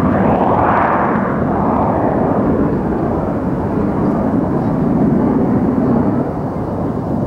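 Jet noise from Blue Impulse Kawasaki T-4 trainers flying a display, their twin turbofans rising to a loud roar as a jet passes in the first second or two, then settling into a steady rumble that eases off near the end.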